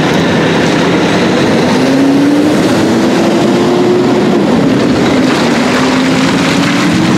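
Diesel tractor-trailer tank truck pulling away close by, its engine pitch rising as it gathers speed, dropping back once about four seconds in at a gear change, then rising again, over heavy tyre and road noise.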